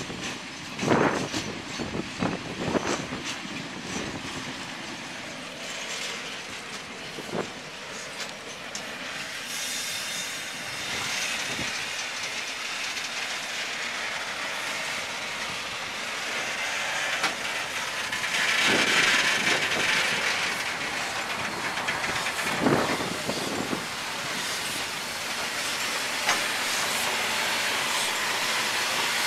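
New Zealand Railways Ja-class 4-8-2 steam locomotive 1275 rolling slowly past, with steady steam hissing and the wheels clunking over rail joints. The hiss builds and is loudest about two-thirds of the way through as the engine goes by.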